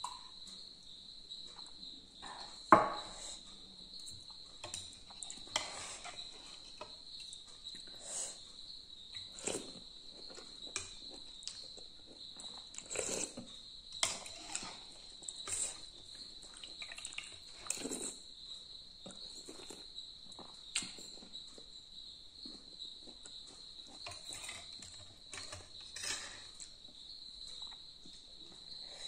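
Eating sounds: a spoon and fork clink and scrape in a bowl while noodle soup is slurped and chewed, with a sharp knock about three seconds in. A steady high-pitched drone runs underneath.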